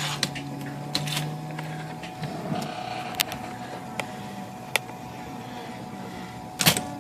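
Brother electric typewriter running with its motor humming and a few isolated clicks from the mechanism. Near the end, type strikes begin as test typing starts to check the capitals after a shift-stop adjustment.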